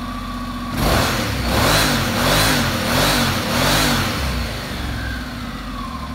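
Honda NC750X's parallel-twin engine, just started, idling and then blipped four times in quick succession about a second in, each rev rising and falling, before settling back to a steady idle.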